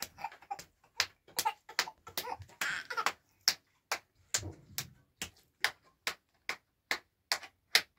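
A small child clapping his hands in a steady rhythm, about two to three claps a second.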